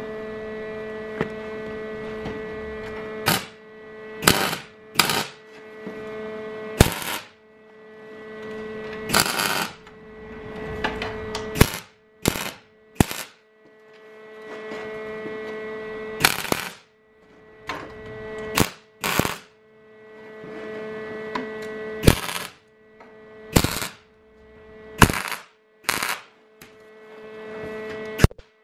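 MIG welder tack-welding steel sprockets in place: about seventeen short bursts of arc crackle, one near the middle held about a second, with a steady electrical hum between the welds.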